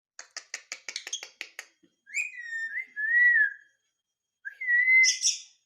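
Ringneck parrot giving a quick run of clicking chatter, then two whistles: the first wavers for about a second and a half, and the second rises and ends near the end.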